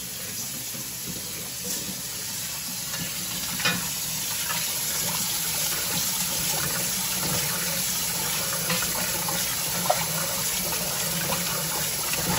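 Kitchen faucet running in a steady stream into a stainless steel bowl of rice while hands swish and rub the grains to wash them, with a couple of light knocks.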